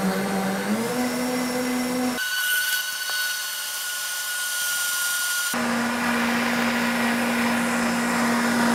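Optimum 9200 high-speed blender running on high, blending chia seeds with almond milk. Its motor hum steps up in pitch about a second in, and for a few seconds in the middle the sound turns thinner, with a high steady whine.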